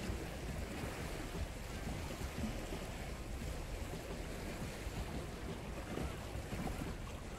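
Steady wind rumbling on the microphone over the wash of sea water against shore rocks.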